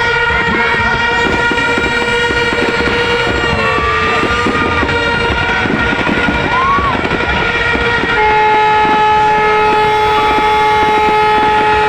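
Several horns held long and steady together, with another lower horn joining about eight seconds in, over dense crackling firecrackers.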